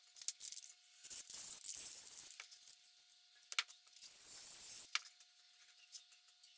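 Paper rustling and crinkling as a paper template and paper towels are handled on a steel workbench. A short hiss of aerosol spray adhesive comes in about two-thirds of the way through, set between two sharp clicks.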